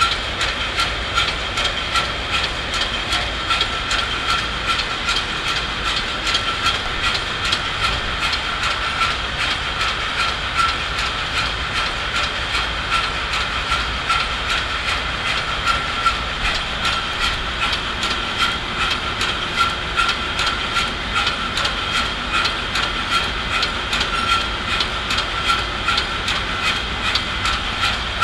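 B&W two-stroke marine main engine, rated 7600 kW, running at 51 rpm: a steady engine-room din with a high whine and continuous rapid ticking.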